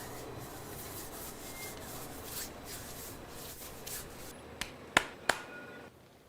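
Soft rubbing and scraping strokes, then a few sharp clicks near the end.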